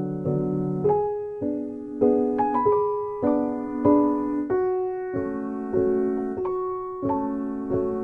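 Background piano music: a slow melody of single notes and chords, each struck note ringing and fading before the next.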